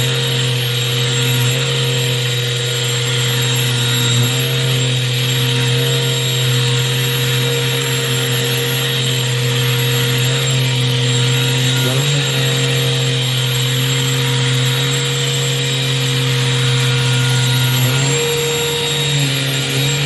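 Shark CH701 Cyclone Pet cordless handheld vacuum's motor running steadily with a constant hum and whine. Its pitch shifts about 12 seconds in and again near the end.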